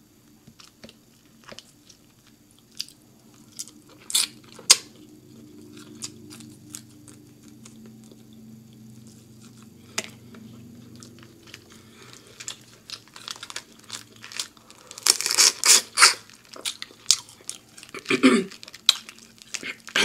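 Close-miked chewing and wet mouth clicks from eating a seafood boil, with scattered crunches and a dense burst of crunching and crackling about three-quarters of the way through.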